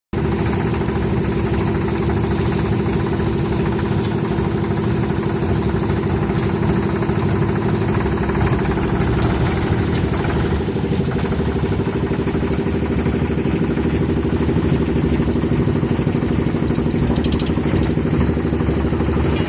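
Tractor engine running steadily at a constant speed, driving the loader's concrete-mixer bucket, with an even firing pulse.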